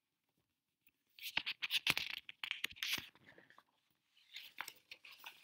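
Paper rustling and scraping as a book page is turned: dense scratchy crackles with sharp clicks starting about a second in, then fainter rustles near the end.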